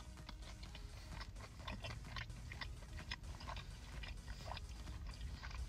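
Quiet close-up chewing of a mouthful of fried chicken sandwich: irregular small wet clicks and crunches, over a faint steady low hum.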